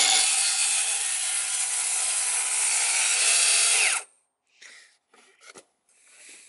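Milwaukee M18 brushless 7-1/4" cordless circular saw running at speed and cutting through a wooden board, a steady loud whine with sawing noise. It stops abruptly about four seconds in, followed by faint handling knocks.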